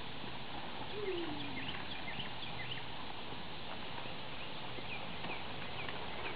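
Tennessee Walking Horse walking on grass with a plastic tarp draped over its neck, the tarp rustling steadily as it moves; short high chirps throughout and a brief low falling sound about a second in.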